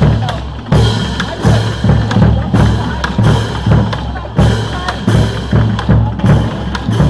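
Marching band drumline playing a cadence: bass drum and snare drums beating a steady marching rhythm, about three bass drum hits every two seconds.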